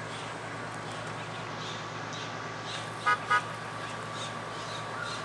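Two short horn toots about a quarter second apart, over a steady low hum.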